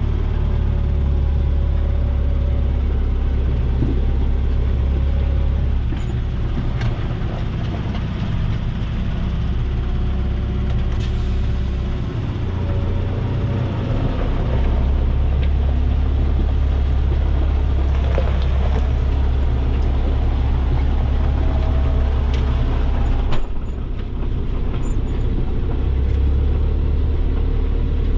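Fendt Farmer 410 Vario tractor's diesel engine running steadily with a deep drone. A few knocks and rattles sound over it, and the drone eases briefly about halfway through.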